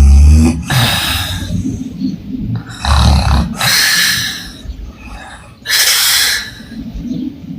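A woman snoring with her mouth open: a loud low snore followed by an airy, breathy blow, the cycle repeating about every three seconds.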